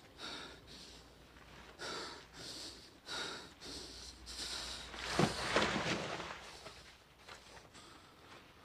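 A man breathing heavily and raggedly, short breaths about once a second, with a longer, louder breath about five seconds in: a winded fighter catching his breath after a fistfight.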